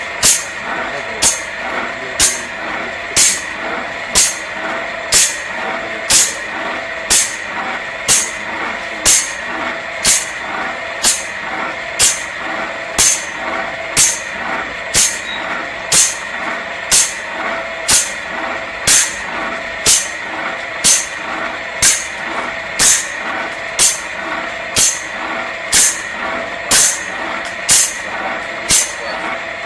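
Automatic circular saw blade sharpening machine grinding tooth after tooth: a short, bright hissing grind about once a second over the steady whine of the motor and wheel.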